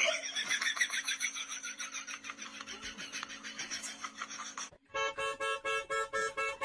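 A horse slurping water from a bathtub under a running tap: a fast, even run of sucking sounds with a faint steady hum beneath. Just before five seconds in it cuts off and a light tune with evenly repeated plucked notes begins.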